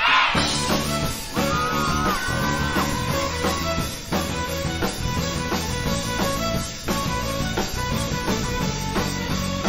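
Live rock band playing an instrumental passage: electric guitar, six-string bass guitar, drum kit and violin, with a steady beat and held, bending lead lines over it.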